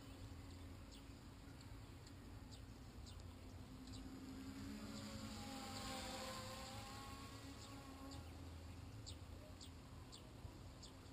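Small nanoquad's propellers buzzing faintly and steadily, louder and dropping in pitch as it passes overhead about six seconds in. Swallows give brief high chirps now and then.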